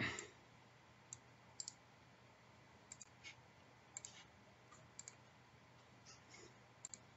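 Faint computer mouse clicks, scattered singly and in quick pairs, over near-silent room tone.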